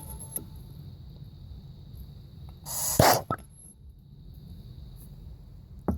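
A short, sharp hissing burst of air about halfway through, ending in a click, over a low steady rumble, with a few light handling clicks.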